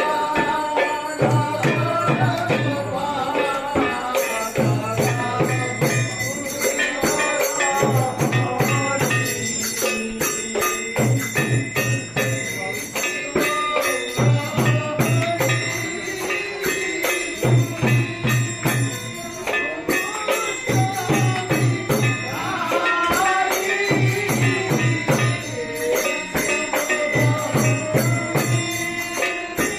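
Music: a melody over a steady drum beat and constant jingling percussion like small bells or a tambourine.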